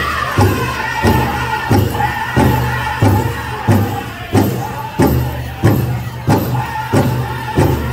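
Powwow drum group playing a chicken dance song: a big drum struck in a steady beat about every two-thirds of a second, with the singers' voices falling away in the first second and lower singing carrying on over the beat.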